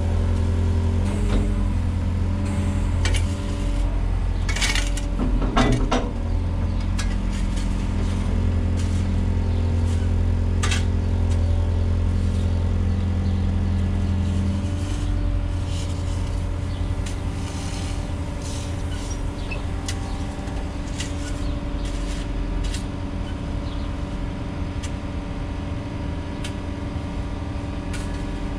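Volvo EWR150E wheeled excavator's diesel engine running steadily, with scattered metallic clinks and knocks over it. The engine note changes about halfway through.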